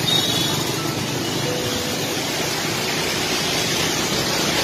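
Steady noise of motor traffic, motorcycles and an auto-rickshaw, driving through floodwater on a waterlogged street.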